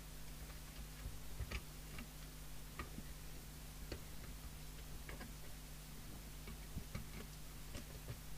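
A handful of faint, scattered small metallic clicks and taps as the lugs of a tin-plate screen can on a CB radio circuit board are worked back with a tool. A low steady hum runs underneath.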